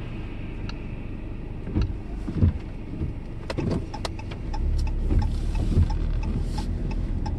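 Car heard from inside the cabin: a steady low engine and road rumble with scattered light knocks and clicks. The rumble gets louder about halfway through.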